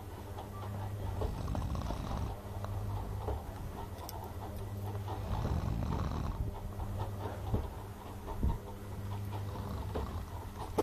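Snoring: slow, noisy breaths, the two strongest about a second in and about five seconds in, over a steady low hum.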